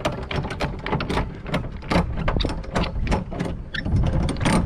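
Jayco Swift camper trailer's roof-winding mechanism cranked by hand to lower the roof, giving a rapid run of mechanical clicks and rattles, about five a second.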